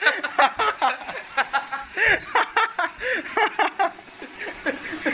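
Men's laughter: repeated short chuckles and snickers.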